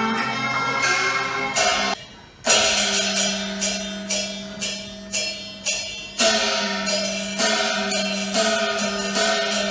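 Cantonese opera accompaniment ensemble playing live: a sustained melodic line, a brief drop about two seconds in, then sharp percussion strikes about twice a second under the melody.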